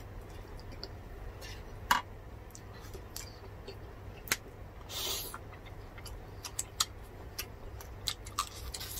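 Close-up eating sounds: scattered wet clicks and smacks of chewing and handling food, the loudest about two seconds in, with a brief rustling noise near the middle.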